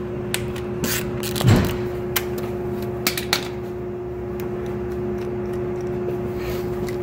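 Hand tools clicking and clinking against metal as a plug is worked out of the S1000RR engine's case to make room for the crankshaft locking tool, with a steady low hum underneath. The clicks come irregularly for the first few seconds, then stop.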